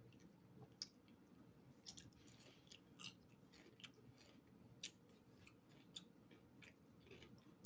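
Faint close-up chewing with a mouth full of food, with scattered sharp little clicks and crunches every half second or so.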